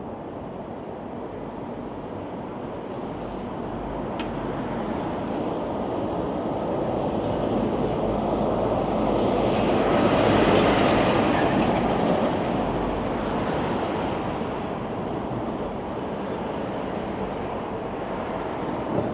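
A passing vehicle: a rushing rumble that builds to a peak about halfway through, then fades.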